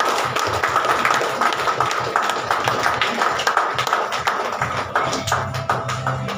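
Audience clapping, many sharp claps a second, over background music that grows louder about five seconds in.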